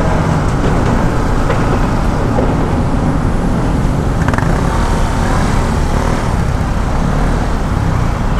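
Kawasaki NS200 single-cylinder motorcycle engine running at low speed while filtering between cars in slow traffic, with the steady noise of the surrounding traffic.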